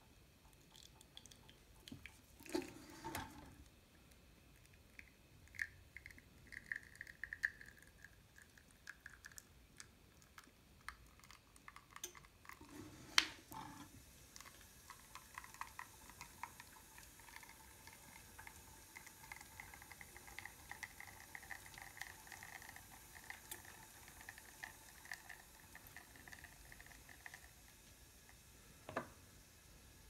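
Espresso dripping and trickling faintly from the portafilter of a Zacconi Riviera lever espresso machine into a small cup, with a few sharp clicks along the way.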